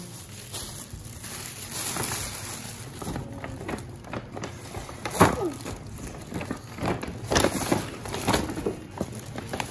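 Irregular rustling and crinkling as gift bags and wrappers are handled and dug through, busiest in the second half, with a brief child's vocal sound about five seconds in.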